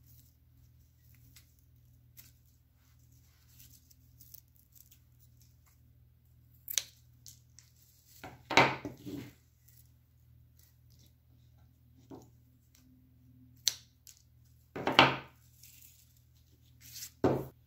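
Scissors snipping papyrus stems, with rustling as the cut stems are handled: about half a dozen short, sharp sounds spaced a few seconds apart.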